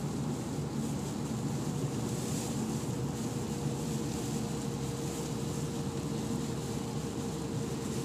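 Steady cabin noise of a car driving at freeway speed in heavy rain: engine and tyre noise on the wet road, with a faint steady hum.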